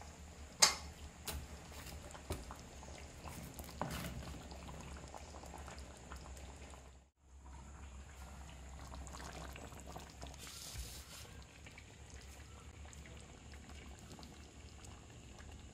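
Pumpkin curry simmering and bubbling in a clay pot, with a few sharp clicks over the first few seconds, the loudest about half a second in.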